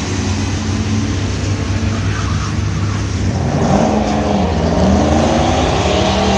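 Drag-racing car engines at the starting line: a steady engine drone, then about three and a half seconds in one engine's note climbs, dips briefly and climbs again as it revs up.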